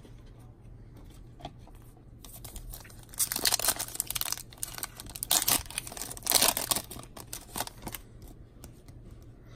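A sealed Upper Deck X-Files trading-card pack torn open by hand, its wrapper crinkling and ripping in two loud bursts about three and five seconds in. Lighter rustling follows as the cards are slid out.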